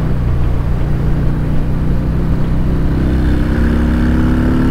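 Harley-Davidson V-twin engine running under load with wind rush, its pitch rising over the last second or two as the bike accelerates, then breaking off at the end.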